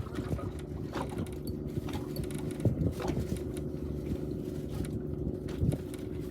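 Steady low hum of a fishing boat's engine, with scattered light clicks and knocks over it.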